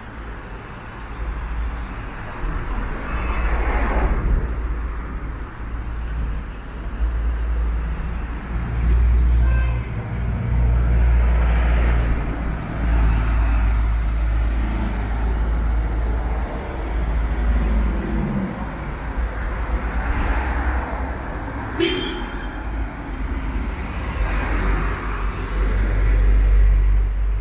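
City street traffic: vehicles pass one after another, each swelling and fading, over a steady low rumble. A short sharp sound stands out about 22 seconds in.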